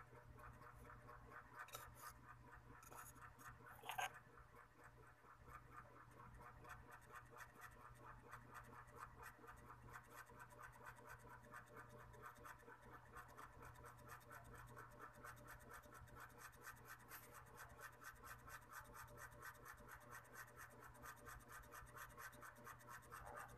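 Faint scratching in a rapid, even rhythm, over a steady low hum, with one sharp tap about four seconds in.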